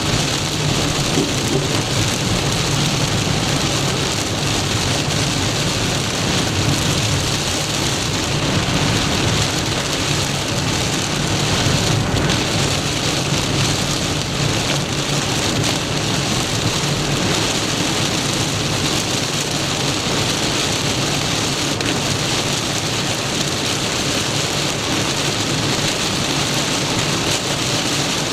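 Torrential rain drumming steadily on a moving car, heard from inside the car, over a steady low road and engine rumble.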